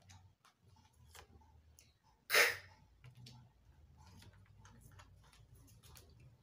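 A woman voices a phonics letter sound once, about two seconds in, as a short breathy burst with no voiced tone. Paper flashcards give faint rustles and light taps around it.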